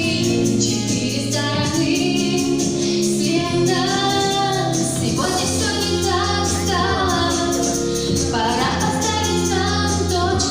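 A woman singing a song in Russian, recorded live, over steady held accompaniment notes.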